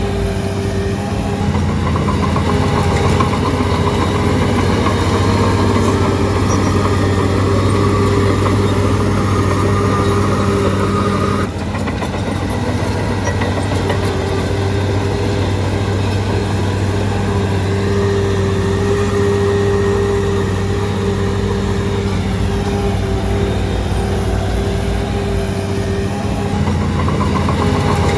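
Shantui DH17C3 bulldozer's diesel engine running steadily while working, with a brief dip in the sound about halfway through.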